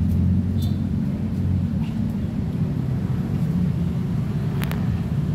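Steady low rumble of background noise, with a short high chirp about half a second in and a sharp click near the end.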